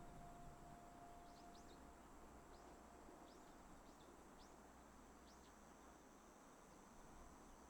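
Near-silent outdoor ambience with a small bird giving about eight short, high chirps, while a faint lingering tone fades away in the first couple of seconds.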